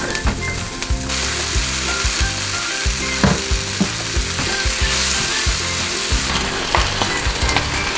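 Chopped onions sizzling in a non-stick frying pan while being stirred, the cooking spoon clicking and scraping against the pan, with tomato sauce being mixed in. Background music underneath.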